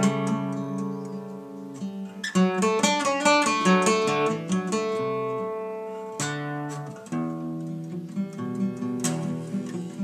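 A five-course octave mandocello, built on a converted dreadnought acoustic guitar body with paired strings, playing a picked melody over ringing chords. A run of quick notes comes about two seconds in, with strummed chords later on.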